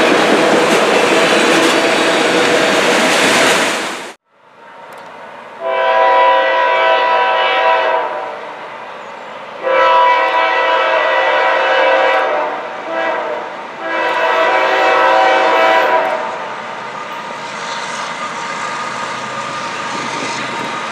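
Autorack freight cars rolling close past with loud wheel noise, cut off abruptly about four seconds in. Then a diesel locomotive's multi-chime air horn sounds long, long, short, long, the grade-crossing signal, and a lower steady rumble follows as the train approaches.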